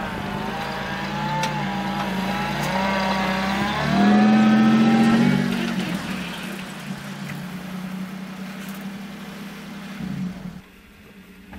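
Lifted 4x4 pickup truck's engine revving as it climbs over a dirt berm. The engine pitch rises to its loudest about four to five seconds in, then eases off as the truck rolls onto flat ground. The sound drops away abruptly near the end.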